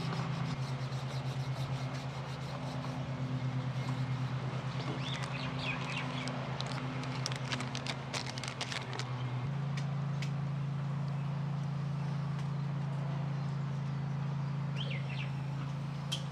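A steady low engine hum, such as a nearby idling vehicle, that shifts in pitch about nine and a half seconds in. Over it come a few bird chirps and, in the middle, the crinkle of a small plastic zip bag being handled.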